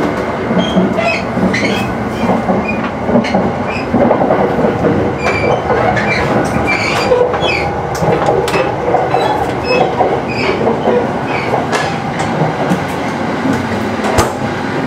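Running noise inside a 285-series sleeper train car in motion: a loud, steady rumble with many clicks and brief high squeaks.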